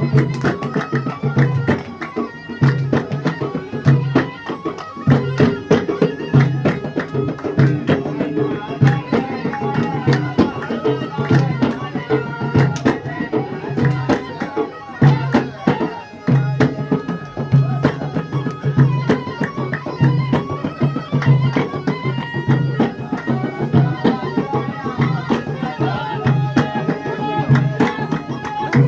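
Traditional Middle Eastern music: a steady, rhythmic hand-drum beat under a melodic instrument line.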